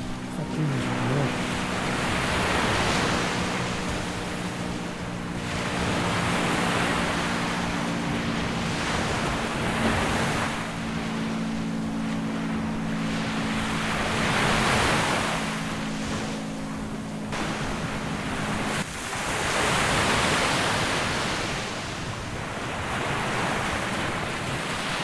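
Surf breaking in repeated swells every few seconds, with wind on the microphone. A steady low hum runs underneath and cuts off about nineteen seconds in.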